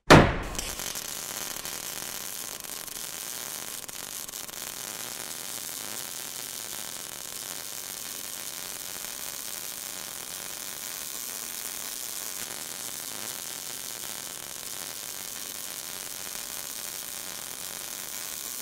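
Electric welding arc sound effect: a sharp burst at the start, then a steady sizzling, crackling hiss.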